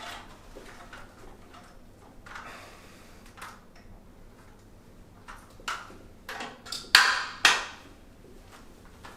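Chiropractic adjustment: scattered light clicks and rustling, then two loud, sharp cracks about half a second apart, about seven seconds in.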